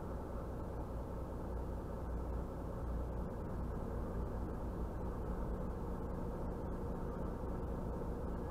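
Muffled, steady low rumble inside a lorry's cab while it stands in traffic: the diesel engine idling.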